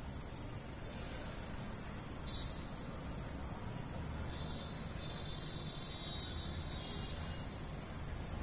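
Steady high-pitched chorus of night insects, unbroken throughout, over a low rumble that grows a little stronger about halfway through.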